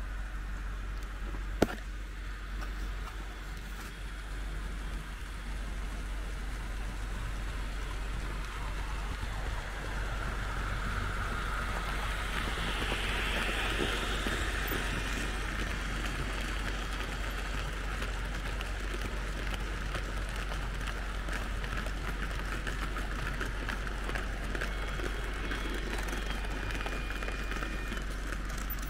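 Märklin H0 model trains running on the layout: a steady rolling rattle of small metal wheels on the track with electric motor whir. It swells for a few seconds near the middle, with a single sharp click early on and a constant low electrical hum underneath.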